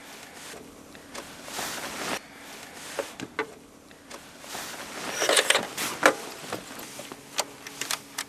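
A portable radio cassette player being handled: plastic clicks of its buttons and rustling, with two louder noisy stretches, the second about five seconds in.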